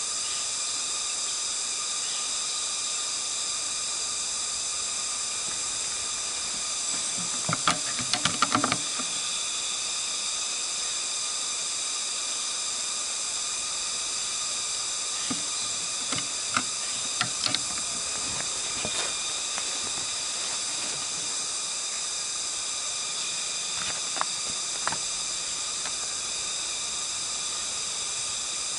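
A steady high hiss with an even whine running through it, broken by short clusters of clicks: several about eight seconds in, more between sixteen and nineteen seconds, and two near twenty-five seconds.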